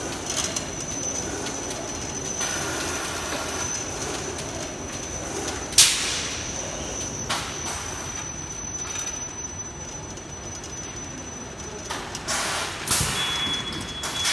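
Palletizing line with a rotary-ring stretch wrapper running: steady mechanical machine noise with a thin high whine that stops about ten seconds in. A sharp loud click comes about six seconds in, short bursts of hiss near the end, and a steady high tone starts just before the end.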